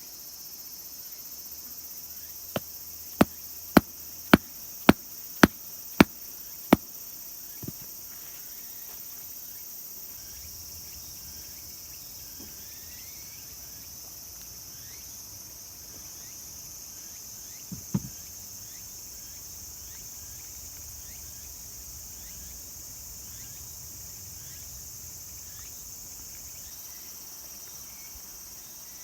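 Steady high-pitched chirring of insects. A run of eight sharp knocks about half a second apart comes a few seconds in, with one more single knock later.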